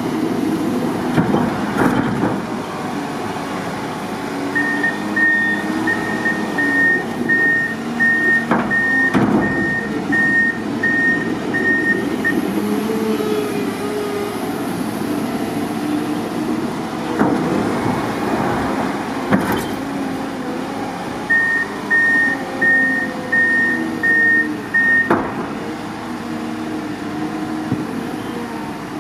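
Wheel loader's diesel engine running and revving up and down as it works snow. Its reversing alarm beeps steadily in two spells, a little under two beeps a second, and there are a few sharp knocks.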